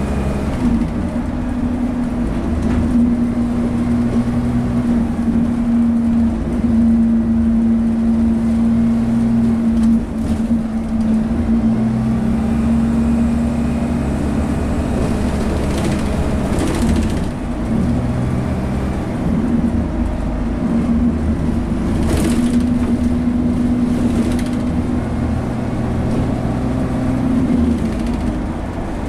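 Dennis Dart bus's diesel engine and Allison automatic gearbox heard from inside the saloon while the bus drives: a steady drone that changes pitch several times. A few short knocks or rattles come through in the second half.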